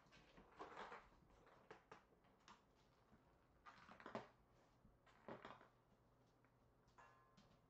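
Near silence broken by faint scattered rustles and taps as kittens scamper and play among toys on a tile floor and in a cardboard box.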